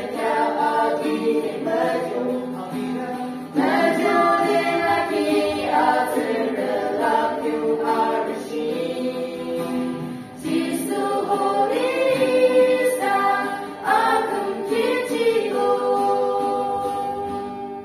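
A small group of young women and a man singing a hymn together, accompanied by an acoustic guitar. The singing goes in long phrases of held notes, with fresh phrases starting a few times, and dies away near the end.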